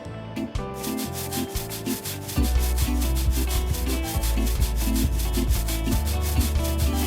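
Background music with a steady fast beat of scratchy, rubbing strokes over held notes; a heavy bass line comes in about two and a half seconds in.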